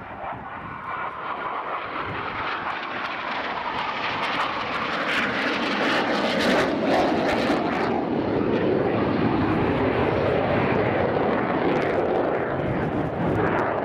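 Turbofan jet engine of an L-159 Alca light combat jet flying a display pass. The jet noise swells over the first six seconds and then holds loud and steady.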